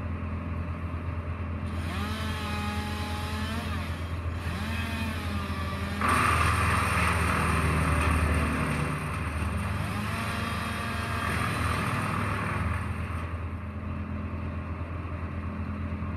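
Wood chipper's engine running steadily with a constant low drone, its pitch rising and falling now and then. About six seconds in it gets louder and rougher for roughly three seconds, then settles back.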